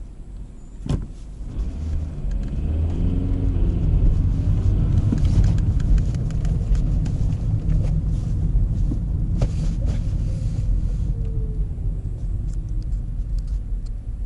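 Volkswagen Polo 1.4 engine and five-speed manual gearbox under way, with low rumble and an engine note rising as the car pulls away. About nine seconds in, after a click, a thin whine falls in pitch over a couple of seconds: the gearbox hum that comes on shifting into first, which the owner was told is most likely harmless.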